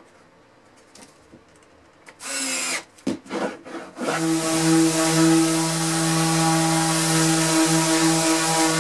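A few light knocks and a brief whir, then, about four seconds in, an electric random orbital sander starts and runs steadily on a flat board with an even hum.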